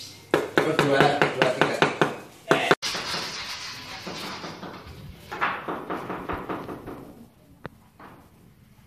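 Rapid knocking of a mallet tapping ceramic floor tiles down into their mortar bed, about six blows a second, cut off abruptly about three seconds in. Then softer rustling and light clattering as gypsum ceiling cornice strips are handled on a tiled floor, fading near the end.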